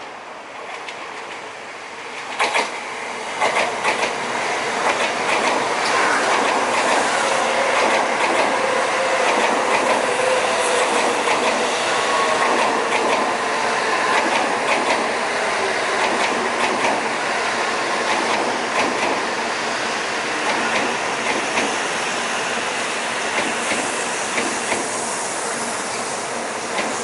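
N700A Shinkansen train passing close by: a steady rushing rumble of wheels on rail, with a string of sharp clicks as the wheels cross rail joints. The sound grows louder about two seconds in, as the front of the train reaches the microphone.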